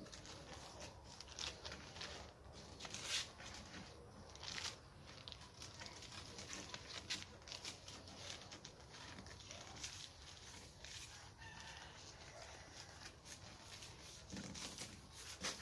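Faint rustling and light taps as the paper covering of a bamboo kite frame is handled and smoothed, with a rooster crowing faintly now and then.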